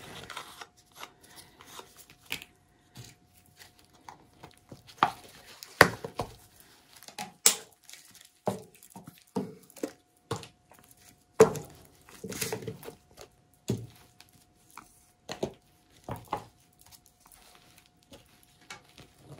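Irregular small knocks, clicks and rustles of objects being handled and set down at a work table, one or two a second with quiet gaps, over a faint steady hum.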